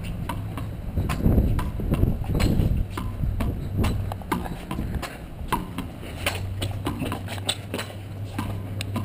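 A small ball being rallied with knuckle rackets: an irregular run of sharp knocks as the ball is struck by the hand-worn rackets, hits a concrete wall and bounces on the concrete court.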